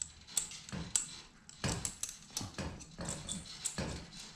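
Irregular light metallic clicks and scrapes of a thin steel safety cable being fed through the looped end of a garage door extension spring, with the spring coils ticking against the cable.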